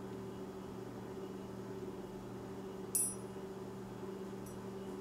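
Steady low hum with a few even tones, and one sharp metallic click about three seconds in from the small parts of an airsoft pistol's barrel and hop-up assembly being handled, with a fainter tick just after.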